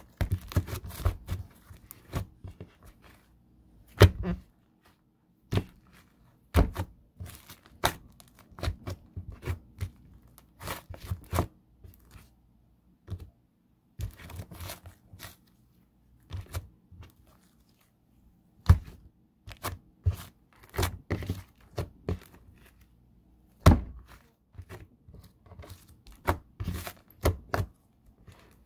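Pink slime being squished, stretched and pressed by hand on a tabletop: a fast, irregular run of sticky clicks, pops and squelches, with a few louder thuds.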